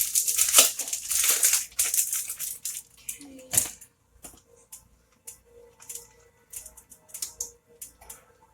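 Cheese being shredded on a grater: a run of quick rasping strokes for about the first three seconds, then a few scattered light clicks and taps.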